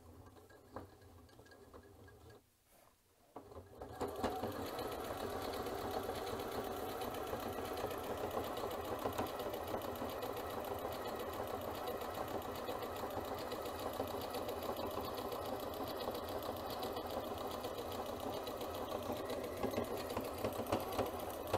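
Janome C30 sewing machine stitching an overcasting stitch along a fabric edge. After a few quiet seconds it starts up about four seconds in and then runs at a steady speed.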